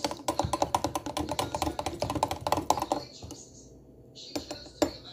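Metal knife stirring melted butter in a plastic shaker cup, clicking rapidly against the cup's wall about six or seven times a second. The stirring stops about three seconds in, followed by a couple of single knocks near the end.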